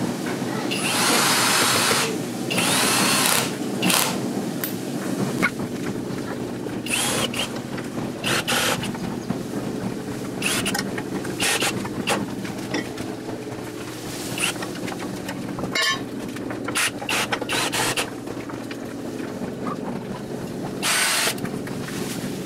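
Cordless drill driving screws through a steel hairpin-leg mounting plate into a monkey pod wood slab. Two longer runs come in the first few seconds, then a string of short bursts as each screw is seated.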